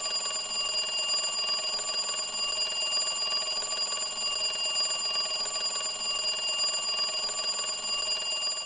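Alarm clock ringing without pause, a steady high ring, sounding the end of a countdown at zero.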